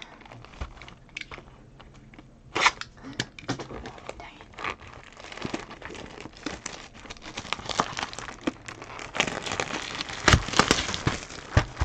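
Plastic wrapping on a box of trading cards being crinkled and torn open: scattered crackles and snaps, growing busier and louder in the last few seconds.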